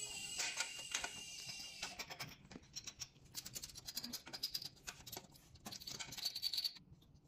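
Light clicks, taps and scrapes of stainless-steel conveyor guide rails and their height brackets being handled and adjusted by hand.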